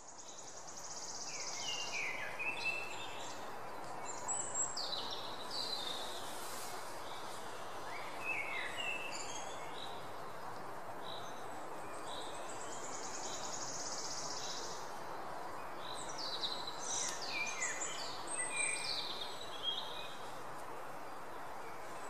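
Nature ambience of birds chirping: scattered groups of short, falling chirps over a steady background hiss, with a high, buzzy trill twice, near the start and about halfway through.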